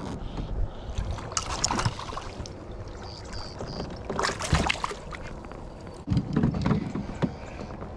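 Hooked bass splashing and thrashing at the water's surface beside a kayak as it is reeled in, in several irregular bursts.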